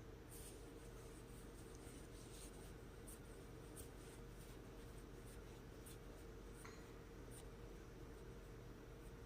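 Near silence: steady low room hum with faint, irregular light ticks.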